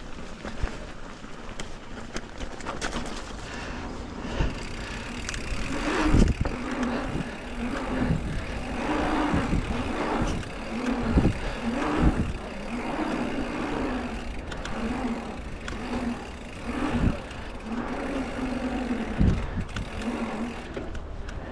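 Mountain bike ridden over rough ground: steady rolling noise with a wavering hum, and sharp knocks and thumps from bumps several times.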